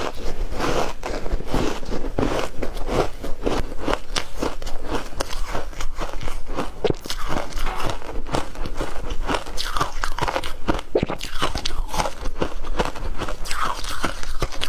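A person chewing crunchy shaved ice close to the microphone: a continuous run of crisp crunches, several a second.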